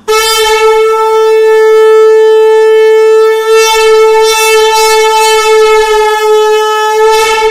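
A conch shell (shankha) blown loudly in one long, steady note that cuts off suddenly.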